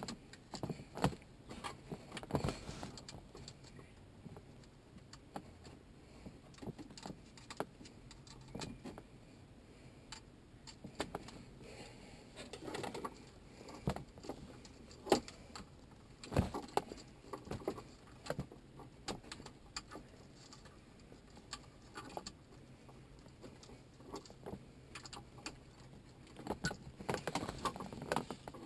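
Scattered light clicks, knocks and rattles of a car stereo and its wiring harness connectors being handled and plugged together, with a few louder knocks.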